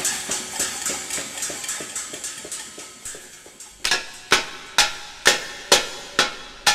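A metal pot being banged in a steady beat, quiet and fading at first, then loud ringing strikes about twice a second from about four seconds in.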